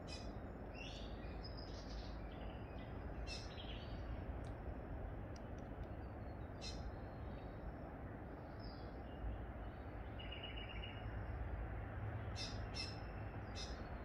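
Small birds chirping and calling off and on, with a short buzzy trill about ten seconds in, over a steady low background rumble.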